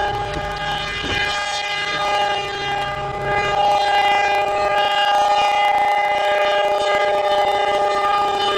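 Locomotive air horn on a snowplow train sounding one long, steady blast of several tones at once.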